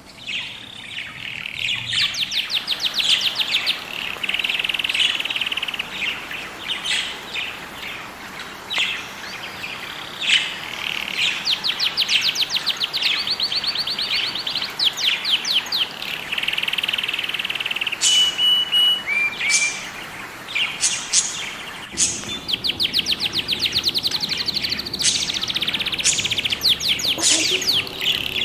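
Budgerigars chirping and chattering: a busy, continuous stream of high chirps and quick trills, with a few short whistled notes near the middle.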